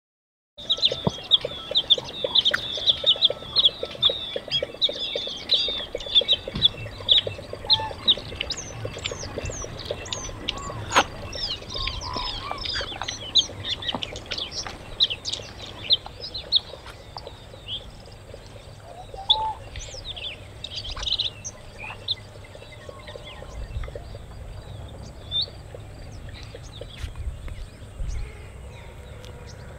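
Many birds chirping and calling in a dense outdoor chorus of short, rapid chirps that thins out after the first half. A low rumble runs underneath.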